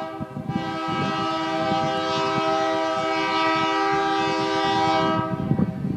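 Diesel locomotive air horn sounding one long, steady chord over a low rumble, cutting off about five and a half seconds in.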